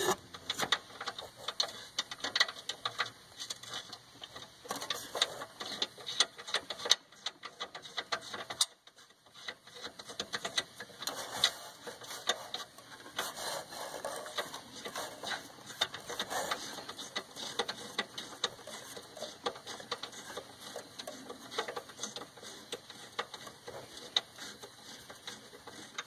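Irregular light clicking and ticking as a new exhaust gas temperature sensor is turned by hand to start its threads in the exhaust port, its wire and fingers knocking against nearby parts, with a short pause about seven seconds in.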